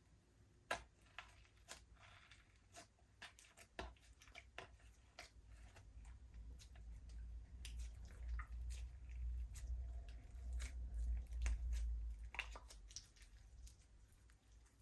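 Slime being squished and stretched by hand: irregular sticky clicks and squelches, with a low rumble that swells from about six to thirteen seconds in.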